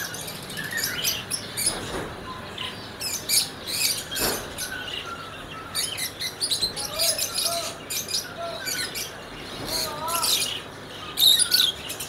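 A cage of lutino peach-faced lovebirds chirping: many short, shrill calls overlapping in an uneven chatter, busiest near the end.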